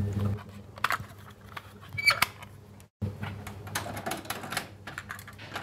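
Scattered plastic clicks and clacks from handling cassette tapes and a Technics stereo cassette deck, over a low steady hum, with a brief cut to silence about three seconds in.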